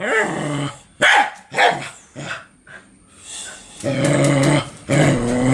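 A dog vocalizing: a call at the start, a few short barks, then a longer drawn-out call with a slightly wavering pitch near the end.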